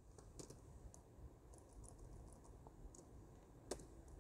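Faint, irregular clicks of computer keyboard keys being typed, the strongest a little before the end.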